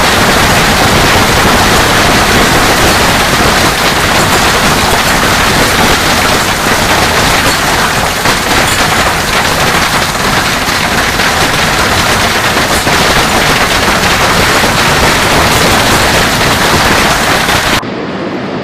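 Loud, dense storm noise of heavy precipitation pounding a surface, an unbroken rapid clatter of impacts. Near the end it cuts off abruptly to a quieter, duller rush.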